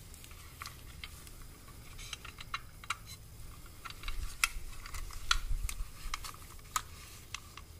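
Scattered small clicks and light taps of a carbon-fibre brake duct, its metal bracket and a small screw being handled and fitted by gloved hands.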